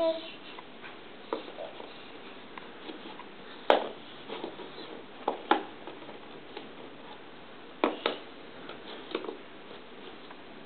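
Jigsaw puzzle pieces being handled and set down, giving scattered light taps and clicks at no steady rhythm. The sharpest knocks come about four, five and a half and eight seconds in.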